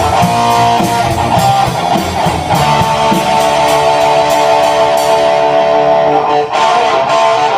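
Live band music with guitar to the fore, sustained chords ringing over a steady beat.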